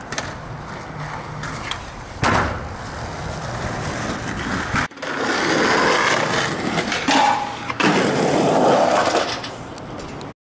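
Skateboard wheels rolling on concrete, with a sharp clack of the board about two seconds in. From about five seconds the rolling is louder and rougher.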